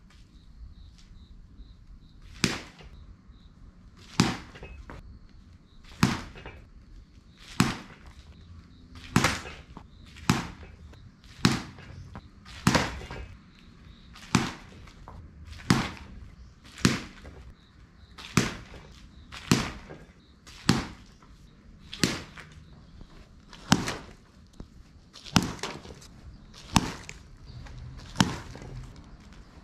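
A bat striking tossed balls over and over in soft-toss batting practice: a sharp crack about every one and a half seconds, around twenty hits in all.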